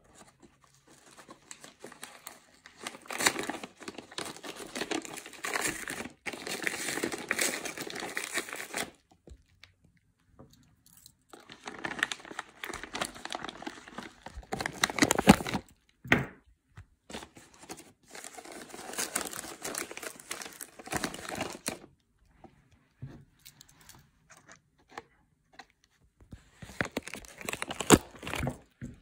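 Padded paper mailer being slit open with a pocket knife and torn, the paper tearing and crinkling in four bouts separated by short pauses.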